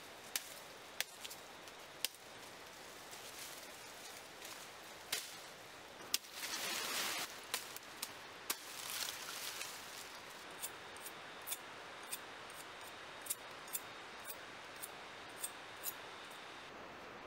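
Machete blade striking palm and rattan stems: scattered sharp chops at first, a rustle of fronds being pulled about six seconds in, then an even run of quick strikes about two a second as a stick is trimmed. A faint thin high tone runs under the second half.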